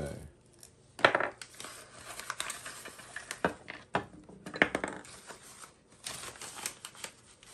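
Packaging pouch rustling and crinkling as a stainless steel extrusion tube and small parts are unpacked, with several sharp knocks and clinks of the metal parts set down on a wooden desk; the loudest knock comes about a second in.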